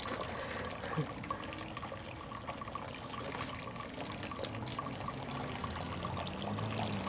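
Steady trickling of water with a few light ticks; a low hum comes in near the end.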